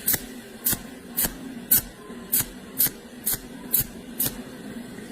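Welding arc struck in short hissing bursts, nine in a row at about two a second, as in stitch or tack welding with a series of quick spot welds.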